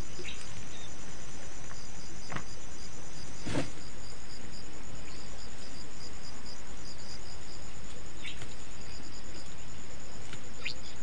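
Insects trilling: a steady high trill with a regular pulsing chirp beneath it. A few brief clicks come in, the loudest about a third of the way in.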